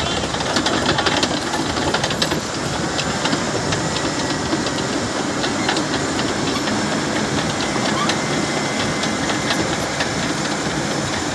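Caterpillar D6N crawler bulldozer running under load as it pushes dirt with its blade: a steady engine drone with many sharp clanks from its steel tracks.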